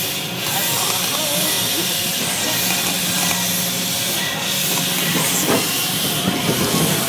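Effect water jets spraying with a steady hiss, water splashing down.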